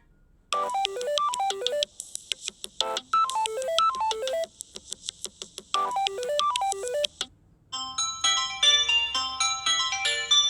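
Two Samsung Galaxy A12 ringtones played one after the other. The first is a quick falling run of pitched notes, played three times. After a short break about seven and a half seconds in, a busier, brighter melody of many notes begins.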